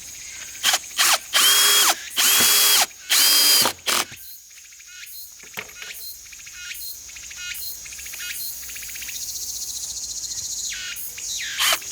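Cicadas singing: a run of loud, high buzzing calls, each about half a second long, in the first few seconds, then a fast-pulsing buzz that slowly grows louder and breaks off near the end before starting up again.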